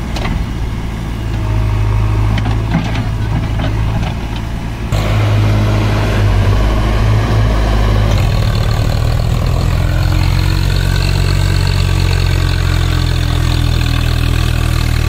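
Heavy diesel engine running steadily, with a low hum; it gets louder about five seconds in and its note shifts again near eight seconds.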